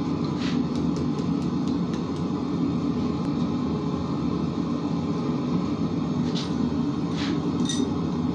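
Steady roar of a propane gas forge's venturi burner. In the last two seconds a hammer strikes hot iron on the anvil a few times, and the last blow rings briefly.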